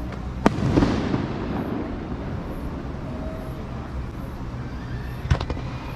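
Aerial fireworks shells bursting: a sharp bang about half a second in with a rolling rumble after it, then two or three more bangs in quick succession near the end, over a steady low background rumble.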